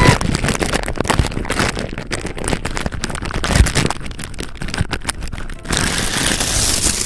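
Plastic bag crinkling and rustling right against a binaural ASMR microphone: a dense run of crackles, turning into a smoother, steadier hissing rustle for the last second or so.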